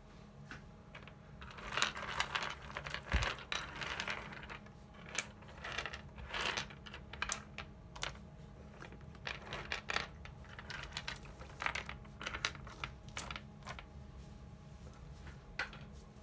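Loose ELNA 680 µF 35 V aluminium electrolytic capacitors clicking and clattering against each other and the tabletop as hands rake through the pile. The clatter comes in a dense run about two seconds in, then in scattered clicks and short bursts.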